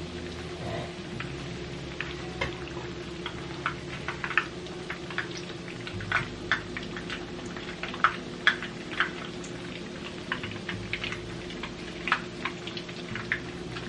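Tuna patties frying in hot oil in a pan: irregular crackling and popping over a steady low hum.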